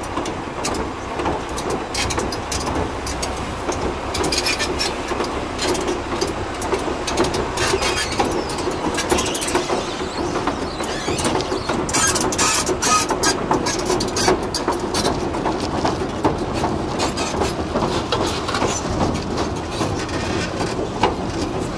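Replica Mark IV First World War tank crawling down a steel loading ramp: its engine runs steadily under a constant irregular clatter of track plates clanking.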